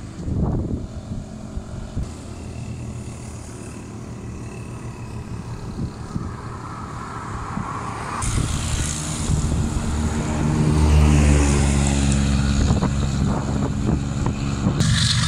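GEU-40 diesel-electric locomotive approaching, its low engine drone growing steadily louder from about halfway through.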